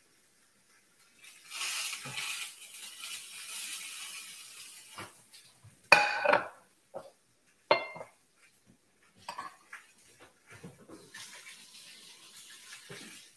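Sizzling as liquid is poured onto artichokes on a hot ridged grill pan, then two sharp ringing metallic clinks of kitchenware about two seconds apart, the first the loudest. A fainter stretch of sizzling follows near the end.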